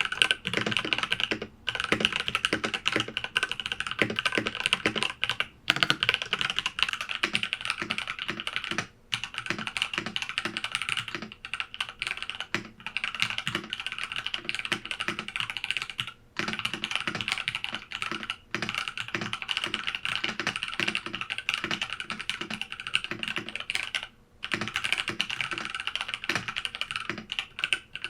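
Fast, continuous typing on an IQUNIX F65 Hitchhiker mechanical keyboard with TTC Gold Pink linear switches, picked up by a camera's built-in microphone. The rapid keystroke clicks break off for a moment every few seconds.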